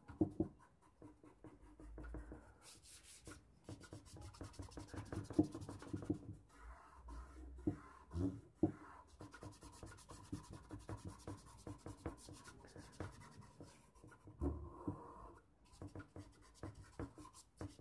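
Faint rubbing of fingers over charcoal on drawing paper in short, irregular strokes, blending and evening out the charcoal so its dust doesn't come loose.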